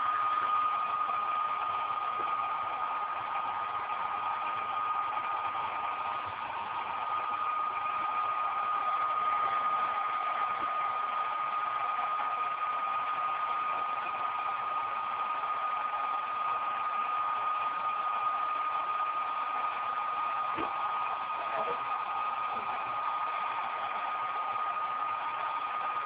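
Hand-held hair dryer running steadily: a constant rush of air with a steady high whine from its motor. It is blowing hot air into an open desktop computer case to heat the board.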